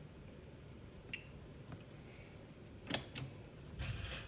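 Handling sounds of a Fluke multimeter being set up for an AC voltage reading: a short electronic beep about a second in, then sharp plastic clicks of the meter and test probes, the loudest just before three seconds, and rustling near the end.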